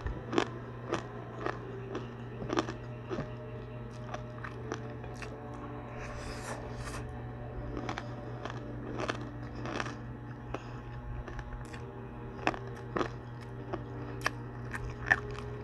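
Crunchy bites and chewing of chicharon (fried pork rinds) close to the microphone, irregular sharp crunches every half second or so, over a steady low hum.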